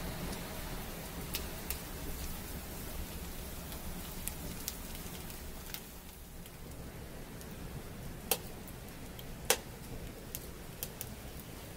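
Wood fire burning in a clay hobo stove: a steady hiss with scattered crackles and sharp pops, two louder pops a little after 8 and 9 seconds in.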